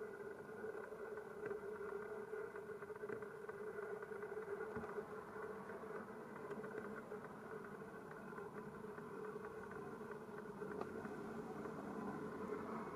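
Aircraft engines running with a steady, buzzing drone.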